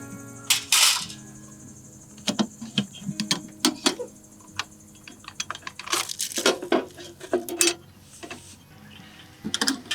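Dishes, pots and utensils clinking and knocking at irregular moments during meal preparation, with a few short rustling or scraping sounds, the clearest about a second in and around six seconds in.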